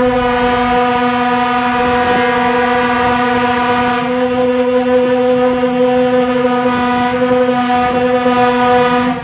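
A train horn held as one long, steady, unchanging tone while passenger coaches rush past with a rumbling wind-like noise; everything cuts off suddenly near the end.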